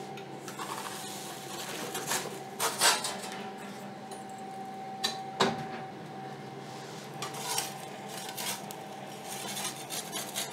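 Metal pizza peels clinking and scraping against the stone floor and metal frame of an electric pizza oven, with knocks from its glass door being shut and opened again. The sharpest knock comes about five and a half seconds in, over a faint steady hum.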